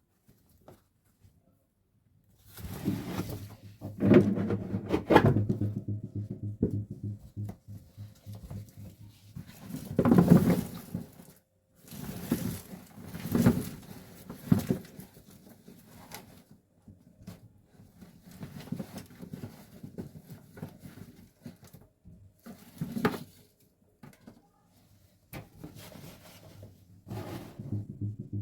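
Household items being handled: an irregular run of knocks, clicks and rustling clatter, loudest about four and ten seconds in, over a faint steady low hum.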